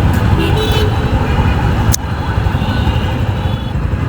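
Road traffic and engines running with a heavy low rumble, heard from a stopped motorcycle. A single sharp click comes about two seconds in.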